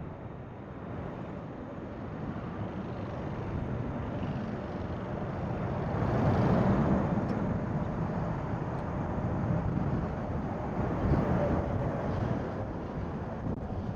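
Jet airliner passing low on approach, its engine roar building to a peak about six or seven seconds in and then easing off slowly, with wind buffeting the microphone.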